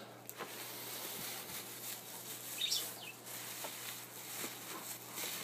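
Bubble wrap around a wire paper rack being handled: plastic rustling and crinkling with a few light clicks and a brief squeak about two and a half seconds in. A low steady hum runs underneath.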